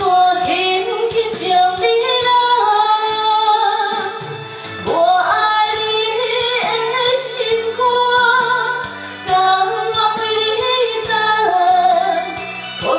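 A woman singing a Taiwanese Hokkien song into a handheld microphone over a karaoke backing track, with a sharp upward slide in pitch about five seconds in.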